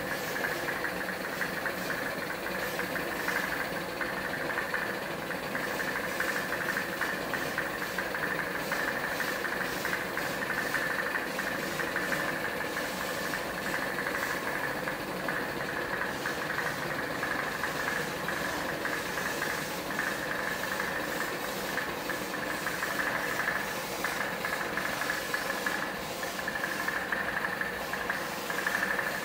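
Air compressor running steadily, supplying a hose-fed spray gun during spraying.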